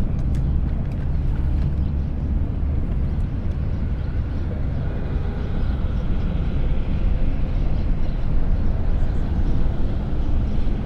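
Steady low rumble of traffic on the highway bridge overhead, swelling a little in the second half as vehicles pass.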